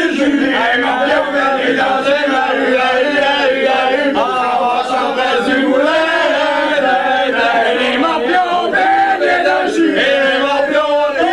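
A group of men singing a song together in unison, with no break.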